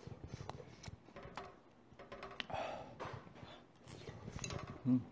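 Eating at the table: chopsticks clicking against the metal pan and dishes, with wet mouth noises of eating spicy tteokbokki. A short low thump stands out near the end.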